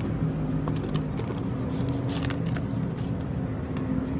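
A motor vehicle engine running steadily in the background, with a low even hum. About two seconds in come a few short crinkles and clicks from the foil fertilizer packet being handled and scooped with a plastic spoon.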